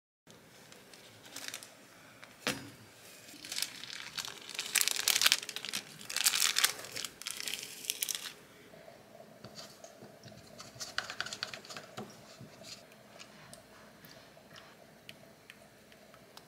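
Crinkling and rustling of wrapping material being handled, heaviest in a stretch of several seconds in the first half, then lighter scattered clicks with a faint steady hum.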